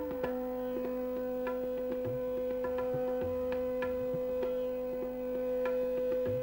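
Background music in an Indian classical style: a steady drone with a held lower note, and quick hand-drum strokes over it.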